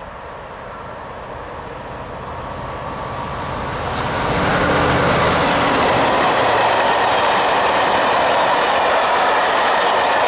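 A locomotive-hauled freight train approaching and passing close by. The sound swells over the first four seconds or so as the locomotive comes near, then settles into a steady, loud rolling of wheels on the rails as a long string of covered hopper wagons goes by.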